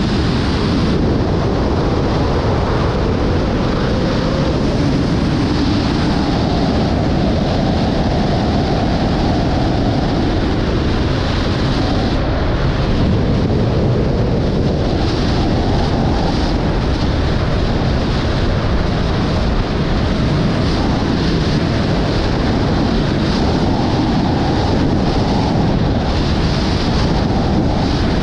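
Loud, steady wind noise on the camera's microphone from the airflow of a Squirrel Aura 2 wingsuit in fast flight.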